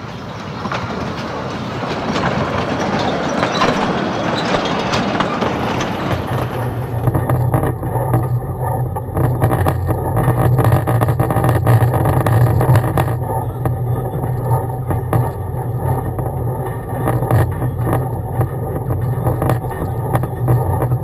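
Narrow-gauge train running with a broad rushing, rattling noise for the first six seconds or so. After that comes a steady low engine drone with scattered clicks and knocks.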